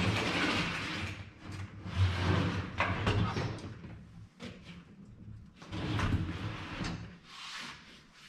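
Renogy 200 W folding solar suitcase being opened out and stood up on a plastic folding table: about four bursts of scraping and rattling from its frame and legs, over a low steady hum.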